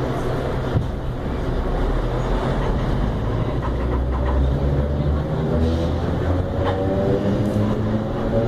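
Traction motors of a CPTM electric multiple unit running under a low rumble, their whine climbing in pitch in steps from about halfway through as the train gathers speed.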